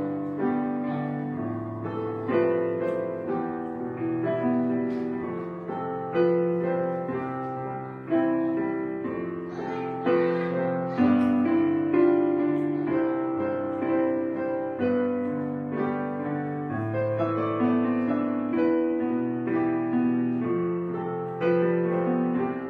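Background piano music: single notes and chords struck and left to ring, with a new note or chord every second or so.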